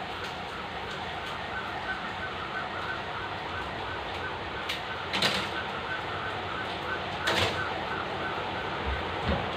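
Clothes and hangers rustling and scraping as laundry is taken down from a metal clothes rack, louder twice, about five and seven seconds in. Underneath is a steady background hiss with a faint regular ticking.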